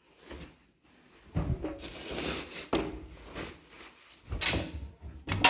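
Washing machine being handled by hand, a series of irregular knocks, rubbing and clicks like a door or drawer being worked, with two sharp clicks near the end.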